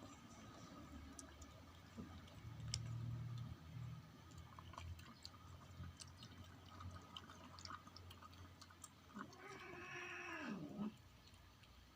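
Kitten lapping milk: faint, scattered small wet clicks. Near the end the kitten gives one meow that holds and then falls in pitch.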